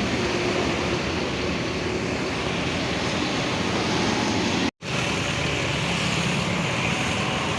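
Bus engine running with a steady rumble. The sound drops out for an instant a little before five seconds in.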